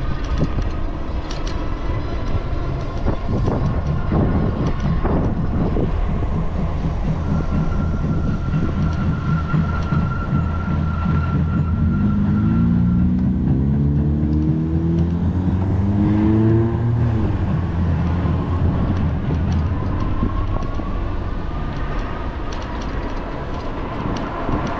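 Wind and road noise from a moving electric bicycle on a street, with traffic around it. A motor vehicle's engine rises in pitch about twelve to seventeen seconds in, and a thin whine climbs as the bike picks up speed near the end.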